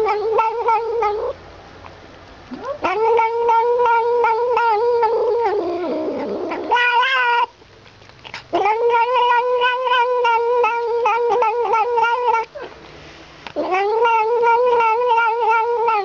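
Tabby kitten drinking from a milk bottle while letting out long, steady wailing cries of three to four seconds each, with short pauses between them and a brief higher squeal about seven seconds in.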